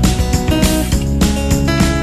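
Background music with a steady beat, laid over the footage.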